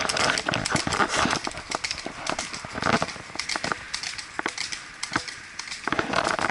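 Several horses' hooves clip-clopping on a paved road, a run of sharp irregular knocks.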